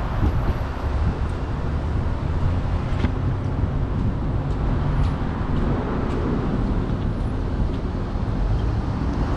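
Vehicle engine running at low speed, with a steady low rumble and road noise.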